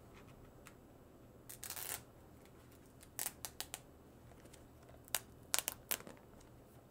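Paper packaging being handled by hand: a short rustle of paper, then quick light clicks and taps in two clusters, a few a second, as the paper-wrapped sleeve is peeled open and turned over.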